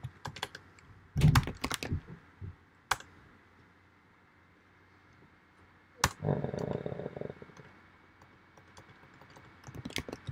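Computer keyboard typing in short bursts of keystrokes, with a quiet pause of a few seconds in the middle. About six seconds in, a louder knock is followed by a second of low rumbling noise.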